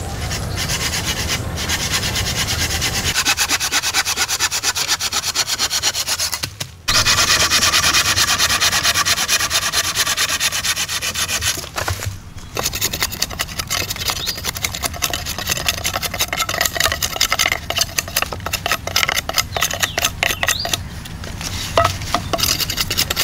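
Hand pruning saw cutting through a wooden log in fast back-and-forth strokes, with two short breaks.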